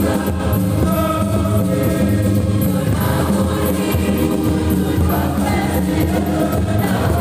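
Choir singing with electronic keyboard accompaniment over a steady beat, the voices loud and continuous.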